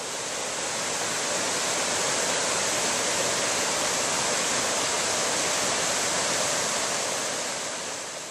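Steady rush of river water running over rocks, an even hiss that eases slightly near the end.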